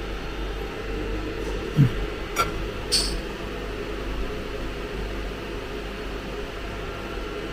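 Steady mechanical hum with a hiss, with a few light clicks and a short knock around two to three seconds in.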